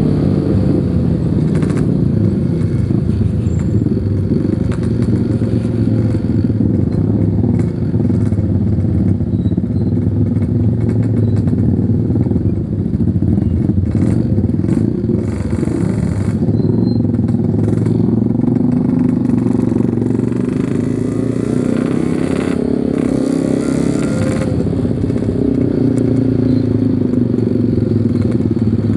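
Yamaha RX-King 135cc single-cylinder two-stroke motorcycle engine running under way, its pitch rising and falling with the throttle.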